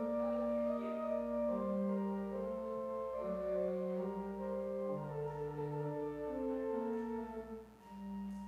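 Church organ playing slow, sustained chords, the held notes shifting about every second, with a brief dip in volume near the end between phrases.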